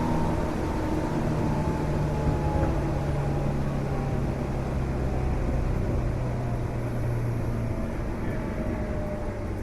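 Tobu 8000 series electric train running, heard from on board: rumble of the wheels on the rails with several steady tones from the running gear that slowly fall in pitch as the train slows. A constant extra noise runs under it, which the uploader suspects comes from an ailing switchboard.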